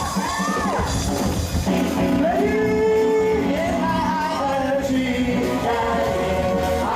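Pop-rock music with a singing voice holding long, sliding notes over band accompaniment.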